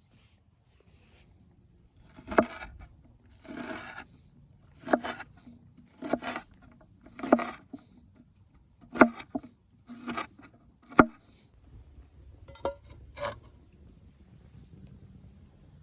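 Food preparation on a wooden board: a series of sharp knocks and short scraping strokes, roughly one a second, dying away to faint background noise for the last couple of seconds.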